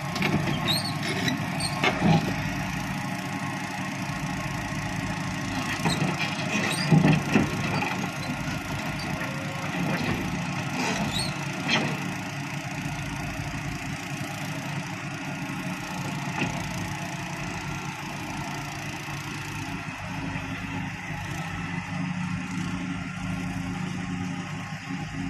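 Heavy diesel machinery running steadily, with several short knocks in the first half, the loudest about seven seconds in.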